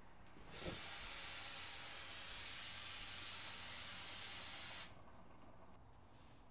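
Compressed gas hissing steadily out of a nitrox scuba cylinder's valve and hose for about four seconds, starting sharply and cutting off suddenly.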